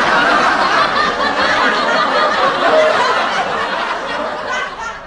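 Loud, continuous laughter that fades a little near the end.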